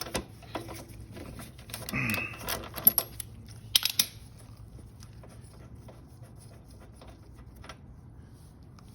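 Clicks and knocks of a hand tool and the spark plug being worked out of a Briggs & Stratton lawnmower engine, the loudest knocks about three to four seconds in, then fainter scattered ticks.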